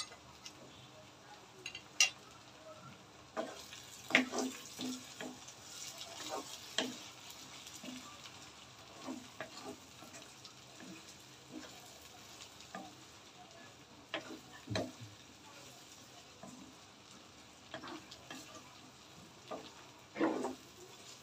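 Wooden spoon stirring chopped hog plums cooking in mustard oil in a frying pan, with scattered scrapes and knocks against the pan over a faint sizzle, the loudest knock near the end.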